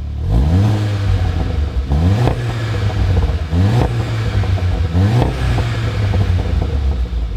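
VW Golf VII GTI's turbocharged 2.0-litre four-cylinder engine revving through a REMUS cat-back sport exhaust. It rises in pitch four times, about a second and a half apart, each rise levelling off into a steady run.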